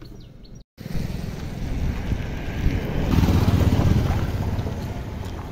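Tata Intra V50 pickup truck's 1.5-litre diesel driving past on a road, engine and tyre noise swelling to its loudest about three seconds in and then fading. It begins abruptly after a brief silent gap.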